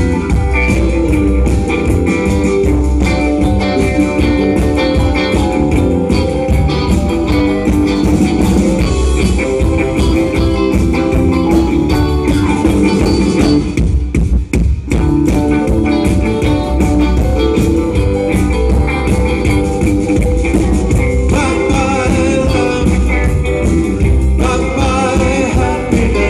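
Live band playing amplified through a PA: electric guitars over drums and keyboard, with a short break in the music about halfway through.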